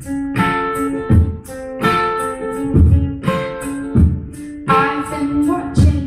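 Live beatboxing, with kick-drum thumps about once a second and hissing hi-hat strokes in a steady groove, accompanied by a plucked and strummed string instrument playing held chord notes.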